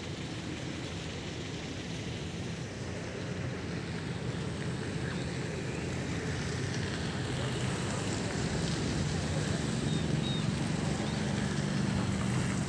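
Steady rushing of flood water released through the open spillway gates of Hirakud Dam, heard from a distance and mixed with wind on the microphone. It grows slowly louder over the second half.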